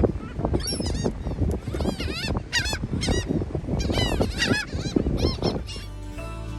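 A flock of seagulls calling over one another, many short squawks each rising then falling in pitch. Background music comes in near the end.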